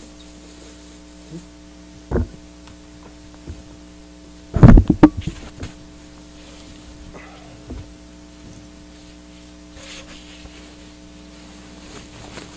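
Steady electrical mains hum from the recording setup, broken by a few short thumps. There is one about 2 seconds in and a louder cluster of bumps around the middle.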